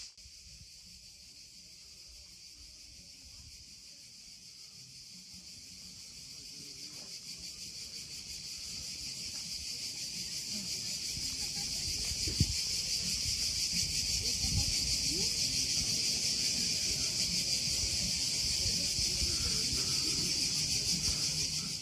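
Chorus of cicadas, a steady high-pitched buzzing that swells louder over the first dozen seconds and then holds.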